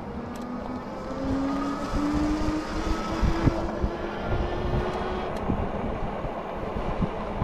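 Engwe Engine Pro e-bike's hub motor whining, its pitch rising slowly as the bike gathers speed, then fading out about five seconds in. Under it runs a steady low rumble of wind and tyres.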